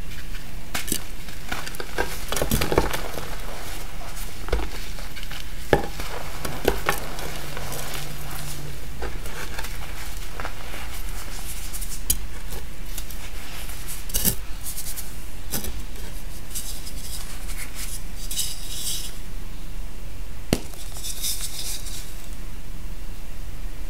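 Dyed gym chalk being crushed and crumbled by hand: dry crunches and sharp snaps with the hiss of powder rubbing between the fingers. A chalk block is snapped in two near the end.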